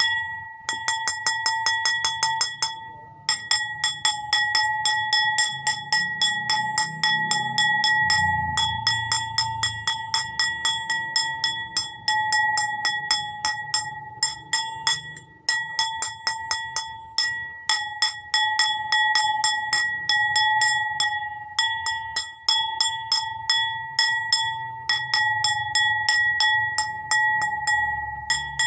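A bowl struck rapidly and repeatedly, several taps a second, each tap ringing on the same clear high pitch, with a few short pauses between runs of taps.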